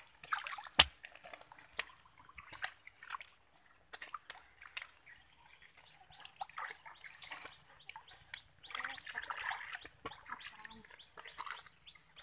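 Hands slapping and pressing wet mud around a bamboo frog trap, making wet slaps, squelches and small splashes. Two sharper slaps come about one and two seconds in.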